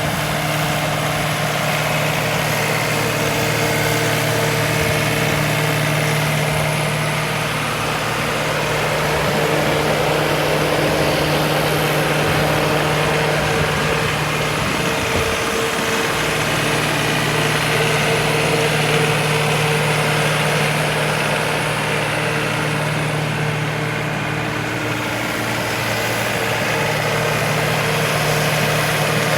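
Ditch Witch SK1550 mini skid steer's engine running steadily, with a brief unsteady patch in its low hum about halfway through.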